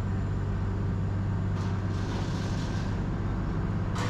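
Engine running steadily with a deep, even hum. A short hiss rises and fades about two seconds in, and there is a brief click near the end.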